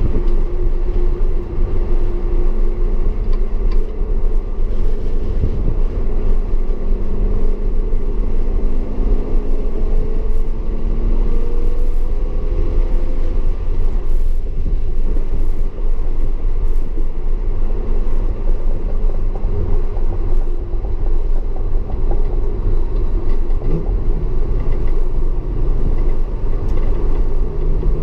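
Audi S4 running at speed with a heavy low rumble in the car. Its engine pitch climbs for a few seconds about ten seconds in, then holds steady near the end.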